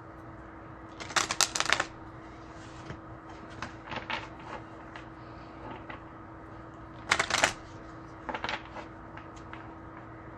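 A deck of oracle or tarot cards being shuffled: two short bursts of rapid flicking, about a second in and again around seven seconds, with softer taps and flicks between, over a faint steady hum.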